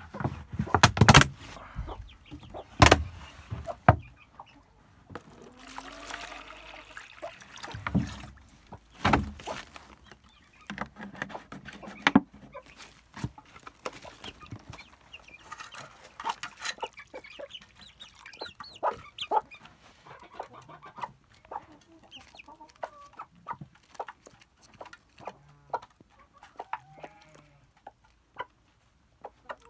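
Chickens clucking, with scattered short calls. Several loud sharp knocks come in the first dozen seconds, the loudest sounds present.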